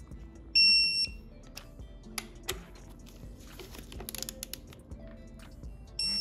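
A digital torque wrench beeping twice, each a steady high-pitched beep of about half a second, about five seconds apart: the signal that each crank hub bolt has reached its set torque. Faint clicks and taps from the wrench and socket come between the beeps.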